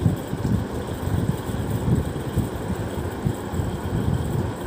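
Steady, uneven low rumble of background noise.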